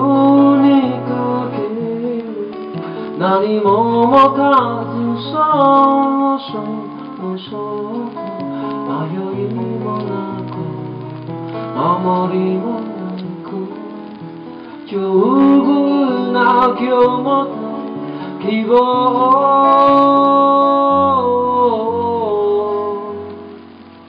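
Male voice singing with his own acoustic guitar accompaniment, several phrases ending in long held notes. The music drops away about a second before the end.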